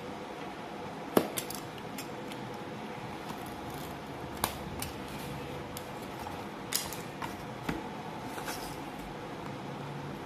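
Snap-off utility knife cutting through a thin wooden sheet, with a few sharp clicks and snaps as the blade works along the cut, the loudest about a second in.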